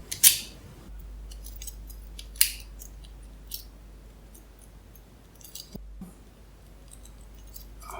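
A key working a Palladium dimple Euro cylinder lock: small metallic clicks and scrapes, the clearest about a quarter second in and near two and a half seconds, with fainter ticks after.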